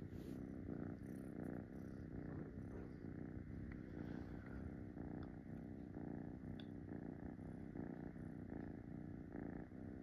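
Munchkin kitten purring steadily, a low pulsing rumble.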